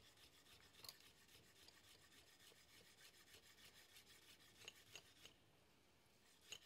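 Faint, quick chopping of fresh herbs with a sharp kitchen knife on a chopping board, several even strokes a second. There are a few louder knocks, and the chopping breaks off briefly a little after five seconds in.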